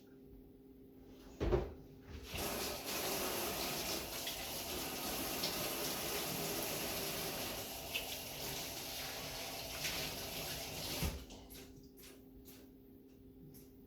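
Kitchen sink tap running as hands are washed under it. It is turned on after a knock about a second and a half in, and shut off with a small knock about three seconds before the end.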